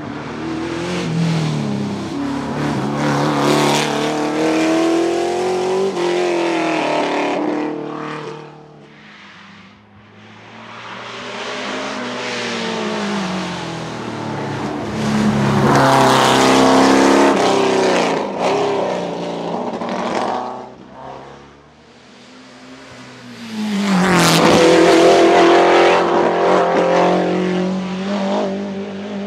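1972 De Tomaso Pantera Group 4 race car with a Ford 351 Cleveland V8, loud, accelerating hard uphill. It passes three times, each pass swelling and fading, and the engine note climbs and drops repeatedly as it revs.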